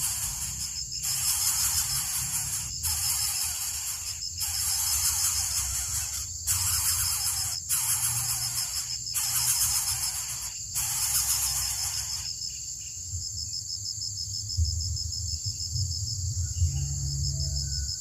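Insects calling: a loud buzz repeating in bursts about every second and a half, which stops about twelve seconds in, over a steady, rapidly pulsing high trill.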